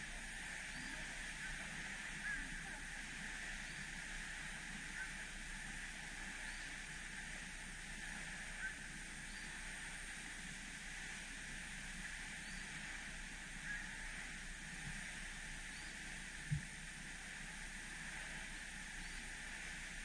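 Steady rush of falling water from Pinaisara Falls, with faint short high chirps now and then and one brief low thump near the end.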